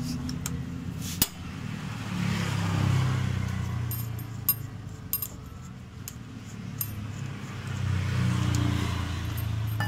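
A few sharp metal clicks as the loosened nut of a scooter's CVT rear pulley is spun off by hand against its chain holder tool, over a low vehicle rumble that swells and fades twice.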